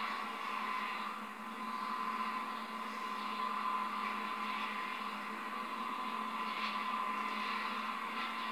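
Steady whirring hum of the small electric motor in a scratch-built N gauge model tamper as it creeps along the track.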